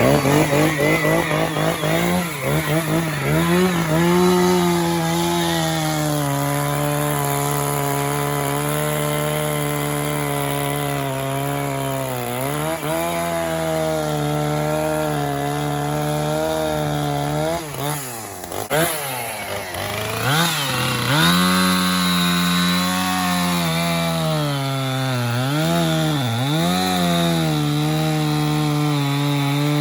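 Chainsaw running under load while cutting through the trunk of a large spruce-sized tree, its engine note held steady and dipping in pitch several times as the chain bites into the wood.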